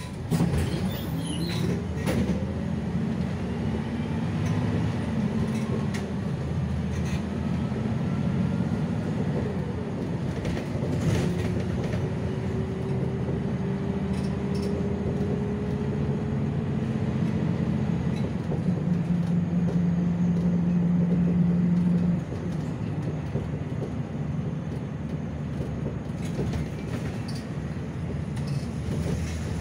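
City bus engine and drivetrain running as the bus drives along, heard from inside the cabin, with a whine that rises as it picks up speed and occasional clicks and rattles. The engine note drops suddenly about three-quarters of the way through.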